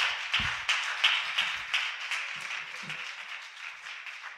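Congregation applauding, with the claps falling into a rough beat of about three a second, fading out steadily towards the end.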